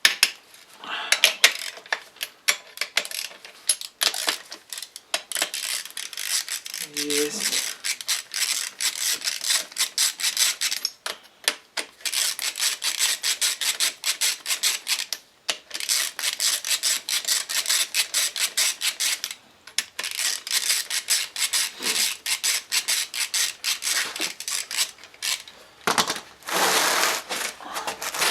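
Ratchet wrench clicking rapidly in runs broken by short pauses, loosening the cylinder nuts of a Honda Dio 27's two-stroke engine crosswise, a little at a time.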